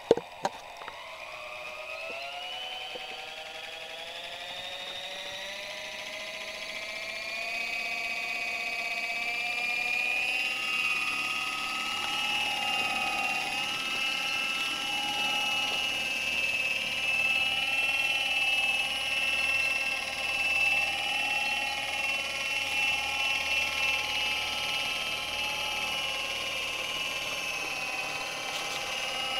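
Electric motors and rotors of a 70 cm four-channel RC Airwolf model helicopter whining, climbing in pitch over the first several seconds as they spin up, then holding a steady high whine that wavers with the throttle as it flies. Two sharp knocks just at the start.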